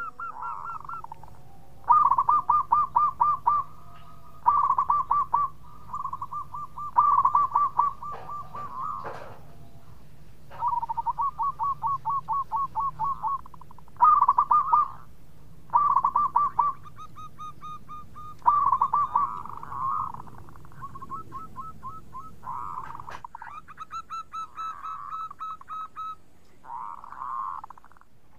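Zebra dove (perkutut) cooing its bekur song: repeated phrases of rapid, stuttering staccato notes, each lasting about a second, with short pauses between them.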